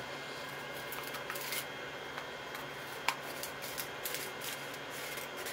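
Steady low room hum with scattered light clicks and rustling, like small objects being handled, with a sharper click about three seconds in.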